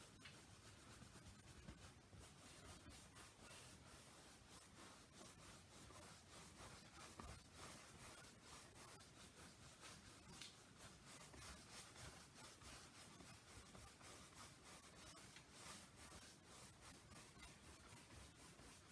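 Faint, scratchy strokes of a dry paintbrush brushed back and forth over a stretched canvas, blending acrylic paint: many quick, irregular strokes.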